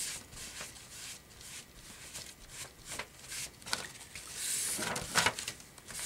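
A cloth rubbing and wiping over paper, wiping excess decoupage glue from the edge of Tyvek freshly glued onto a manila envelope. There are soft rustles throughout, a brief stronger rub about four and a half seconds in, and a single sharp knock on the tabletop about five seconds in.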